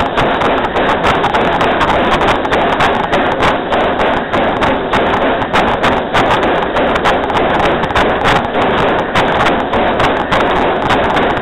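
Close-up, continuous rapid clatter and rumble of narrow-gauge steam locomotive No. 192's wheels and running gear rolling over the rails, dense with irregular clicks and knocks.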